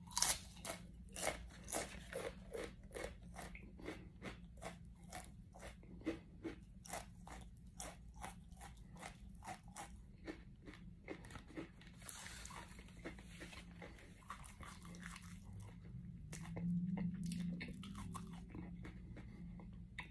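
A crunchy tortilla chip, the Paqui One Chip Challenge chip, being chewed close to the microphone: sharp crunches about two a second that die away over the first twelve seconds as the chip is ground down. A short hiss follows, then a low hum.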